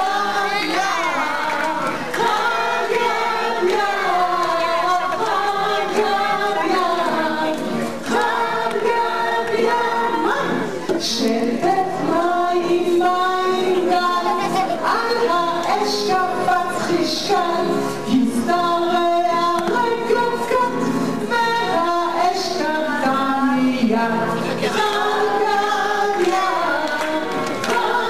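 A group of voices singing a song together, women's voices among them, carrying on without a break.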